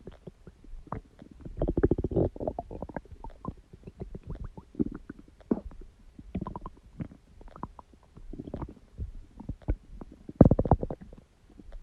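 Human stomach growling and gurgling: an irregular run of small bubbling clicks with longer, louder gurgles about two seconds in and again near the end.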